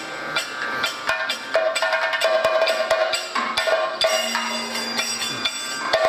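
Kathakali percussion accompaniment: rapid, dense drum strokes with ringing metal percussion, a steady ringing tone joining about one and a half seconds in and a bright metallic shimmer from about four seconds in.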